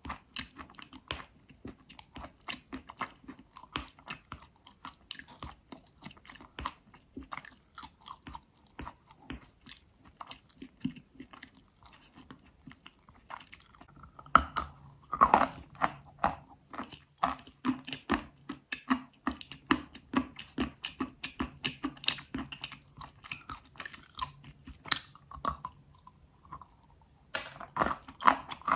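Astana edible chalk being bitten and chewed: a steady run of small, crisp crunches, with one louder bite about fifteen seconds in.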